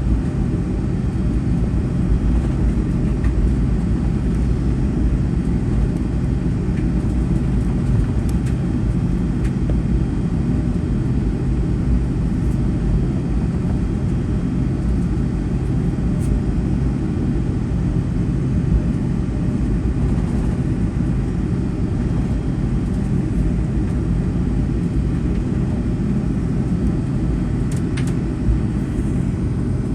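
Cabin noise inside a Boeing 757-200 on the ground after landing: a steady low rumble.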